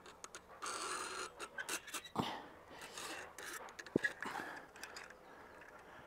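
Rope being hauled through an improvised wooden pulley to lift a log: uneven rustling with scattered clicks and a few sharper knocks, busiest in the middle, along with a man's effortful breathing.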